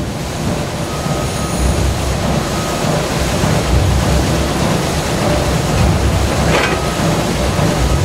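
Steady low rumbling noise, like heavy machinery or a passing vehicle heard from a distance, with a short sharp scrape about six and a half seconds in.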